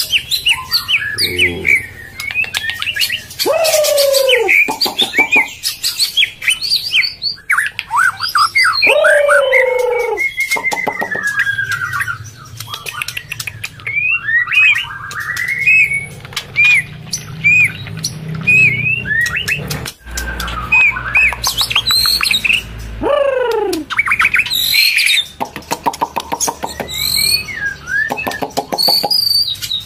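Murai batu (white-rumped shama) calling: a busy run of short chirps, with several loud whistles sweeping steeply down in pitch and scattered clicks between them.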